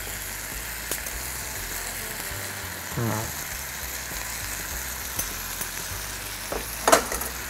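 Sliced peppers, carrots and onions sizzling steadily in a frying pan as boiled spaghetti is lifted in from a strainer with tongs and tossed through. A sharp clack sounds near the end.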